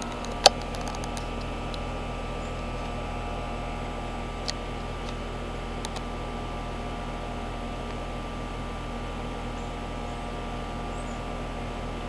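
Carrier outdoor HVAC units running with a steady hum, their three-blade condenser fans turning, one of them a 25HCC536A300 heat pump. A sharp click about half a second in.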